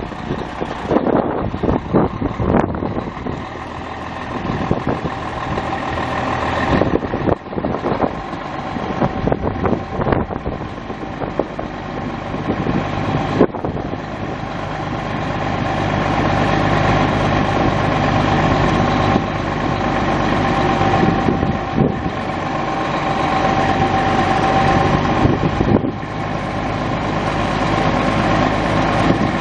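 A 1994 International applicator truck's Caterpillar six-cylinder turbo diesel running steadily. It gets gradually louder over the second half.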